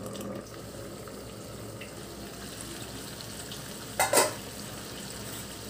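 Faint steady sizzle of katla fish heads and potatoes cooking down in a kadai on low heat as the water dries off. Two quick knocks about four seconds in.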